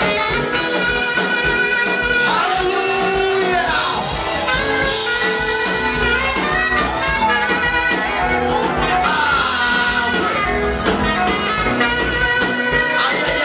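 Church praise music: a vocal group singing a worship song over instrumental accompaniment with a steady percussion beat.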